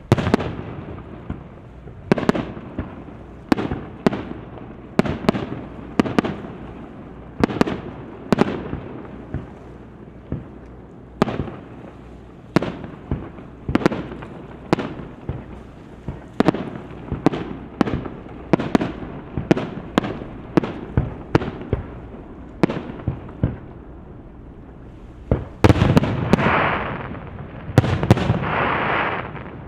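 Aerial fireworks going off in an irregular series of sharp bangs, one or two a second, each trailing off briefly. About four seconds from the end they give way to a denser, continuous stretch of bursts.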